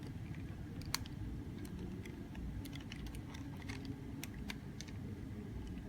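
Light, irregular clicks and taps of small hard plastic parts being handled, over a low steady hum.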